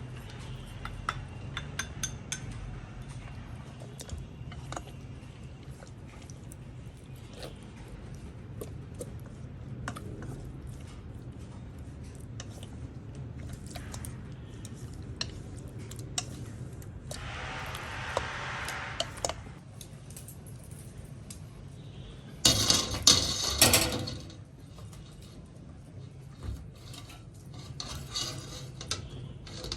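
Kitchen handling sounds: scattered clinks and knocks of utensils and dishes over a steady low hum, a rustling, hissing stretch a little past halfway, and a loud clatter of several knocks about three quarters of the way in.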